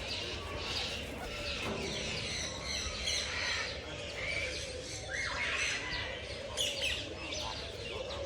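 Many birds chirping and calling at once, a busy chorus of short overlapping chirps and whistles.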